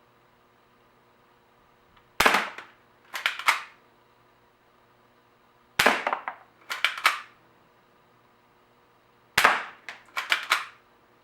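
Barra 1911 spring-powered BB pistol being fired three times, a few seconds apart. Each shot is a sharp snap followed within a second by a quick run of smaller clicks.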